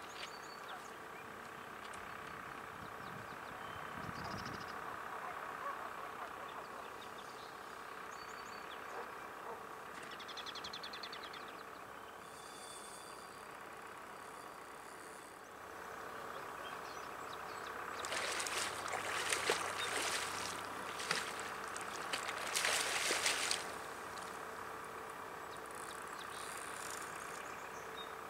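Outdoor riverbank ambience: a steady distant mechanical hum with birds chirping now and then. About two-thirds of the way in comes a louder stretch of rushing, crackling noise lasting about five seconds.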